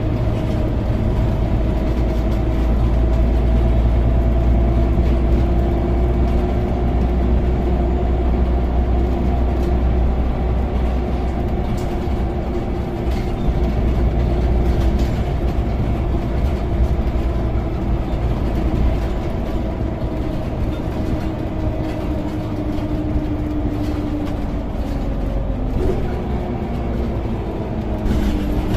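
Scania OmniCity bus heard from inside the passenger saloon while driving: a steady low engine rumble with a drivetrain whine that holds its pitch, then falls slowly near the end. Occasional light clicks of rattling fittings.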